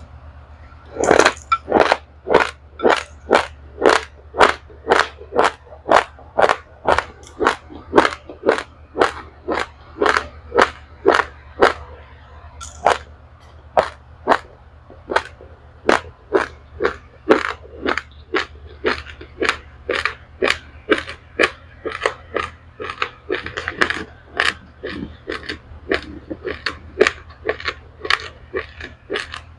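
A person chewing a mouthful of dry-roasted raw rice, crunching it steadily at about two crunches a second, starting about a second in.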